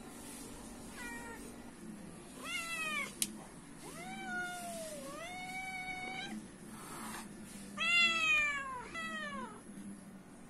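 Domestic cat meowing repeatedly for food, about five meows. One long drawn-out meow comes in the middle and the loudest comes near the end. There is a single sharp click about three seconds in.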